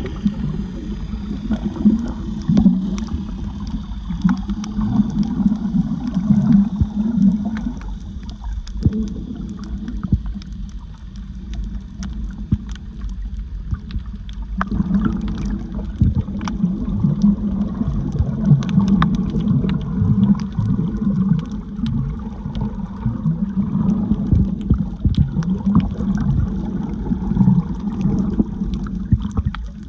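Water gurgling and sloshing against a camera housing underwater, with scattered faint clicks; it eases off for a few seconds in the middle.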